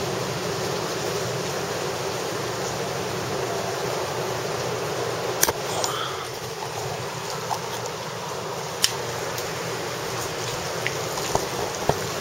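Heavy rain falling steadily, an even rushing hiss, with a few sharp clicks about five and a half seconds in, near nine seconds and near the end.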